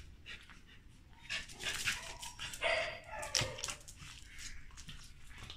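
Corgi whining with a few short yips while begging for a treat, with a sharp click about three and a half seconds in.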